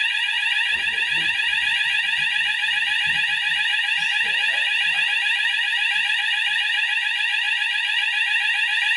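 Hochiki fire alarm sounder going off in a test, a continuous tone that sweeps rapidly over and over at a steady level.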